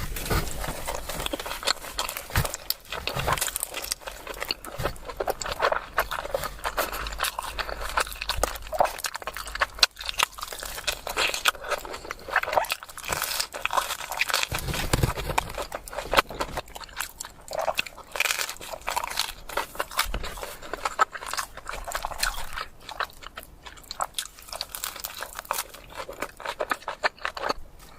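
Close-miked eating of cheesy pizza: continuous biting and chewing with quick, irregular mouth clicks and smacks.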